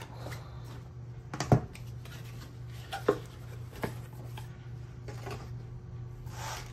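Cardboard kit box handled on a wooden tabletop: a few light knocks as the box is slid out of its packaging and set down, the loudest about a second and a half in, over a steady low hum.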